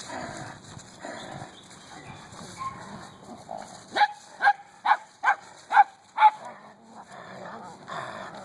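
Belgian Malinois puppy barking: a quick run of about six short, sharp barks in the middle, with softer scuffling noises before and after.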